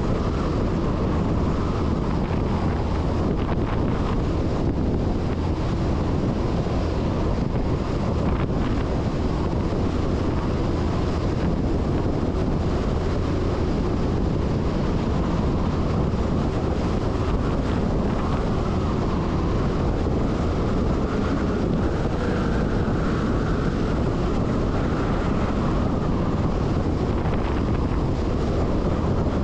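Steady wind rushing over the microphone on the outside of a MAN LE 280 B diesel 4x4 truck on the move, mixed with its engine and road noise.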